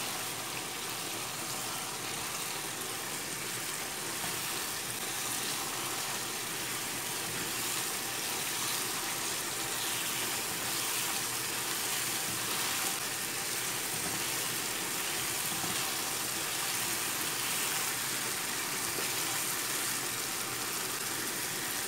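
Chicken masala sizzling steadily in a nonstick pot over a gas flame while a slotted spatula stirs it, with the chicken almost done.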